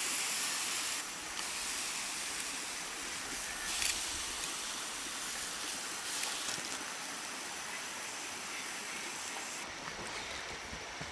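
River water rushing, a steady hiss that steps louder and softer a few times.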